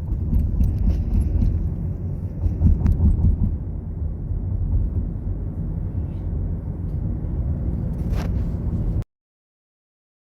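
Low, steady rumble of car road and engine noise heard from inside the cabin of a slowly moving car, with a few faint clicks. The sound cuts off to complete silence about nine seconds in.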